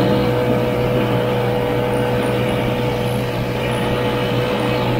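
Vintage Ski-Doo snowmobile's two-stroke engine running steadily under way across snow, a constant drone with no change in pitch.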